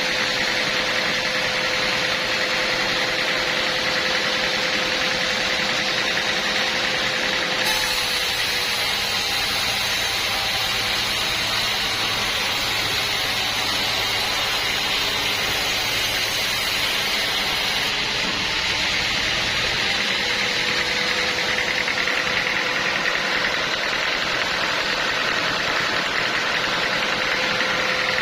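Portable sawmill's engine running steadily. For about ten seconds in the middle the sound changes, with added hiss and a weaker steady tone.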